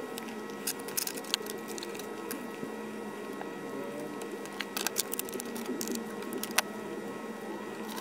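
Scattered sharp plastic clicks and taps from a smartphone's housing being handled and pressed together during reassembly. The loudest click comes about six and a half seconds in, over a steady background hum.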